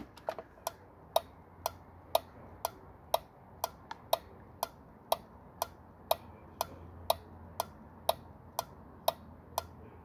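A 5-pin automotive relay in a plug-in relay tester clicking on and off about twice a second as the tester cycles it: the relay is switching, and it passes the test.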